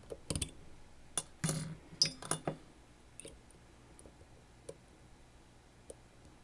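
Small metal clicks and clinks of a Sargent Keso lock and the tools working on it. There is a quick cluster of sharp knocks and clinks in the first two and a half seconds, then only a few faint ticks.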